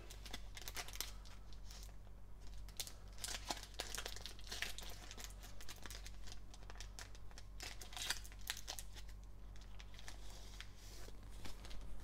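Foil wrapper of a Panini Select basketball card pack crinkling and tearing as it is opened by hand, a steady run of small crackles with a few louder rips, then the cards slid out.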